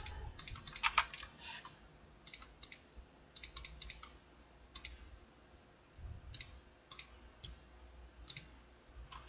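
Faint, scattered clicks of a computer mouse and keyboard, one or a few at a time every second or so.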